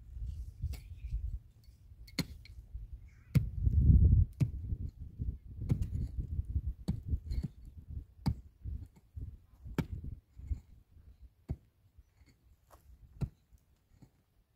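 A series of irregular sharp knocks and clicks, a few louder strikes among them, over a low rumble that swells about four seconds in and fades out in the second half.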